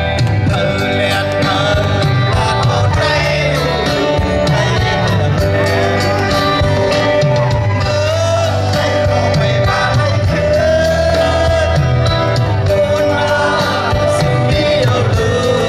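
Live rock band: a man singing over electric guitar and a drum kit.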